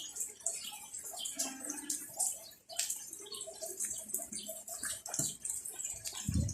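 Rain falling, with many irregular drops ticking close by over a steady hiss. A low thump comes near the end.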